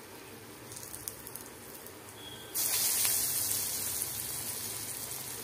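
Pakora batter deep-frying in hot oil in a kadhai: a faint sizzle with a few pops, then about two and a half seconds in a fresh spoonful of batter drops in and the sizzle jumps loud, easing off slowly.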